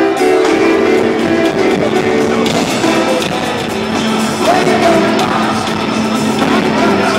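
Live band playing a rock song, with guitar and a voice singing over it.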